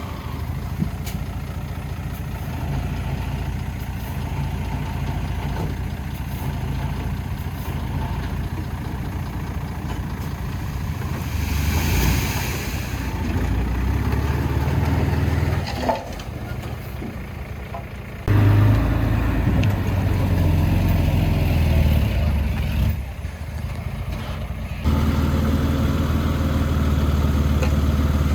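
Heavy diesel engines of earthmoving machinery running with a steady low drone. There is a brief hiss about twelve seconds in, and the level jumps suddenly several times.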